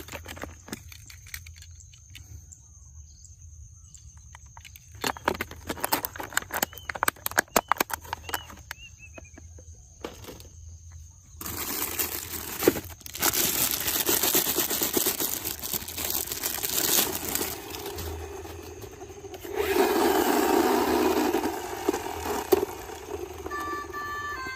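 Plastic toy cars being handled, clicking and knocking together in quick clusters. Then a long stretch of scraping, rolling noise, loudest near the end.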